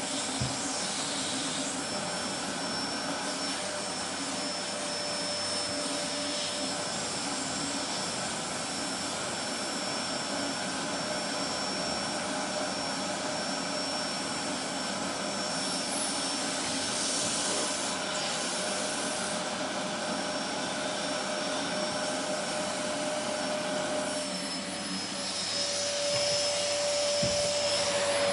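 Vacuum cleaner running steadily, a dense motor-and-airflow noise with a thin high whine through it. Near the end the sound dips briefly and then comes back a little louder, its pitch slightly changed.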